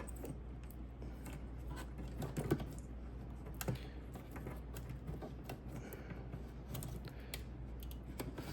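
Faint, scattered small clicks and taps of plastic parts and wiring being handled and pushed into a headlight housing, with a slightly louder click about two and a half seconds in.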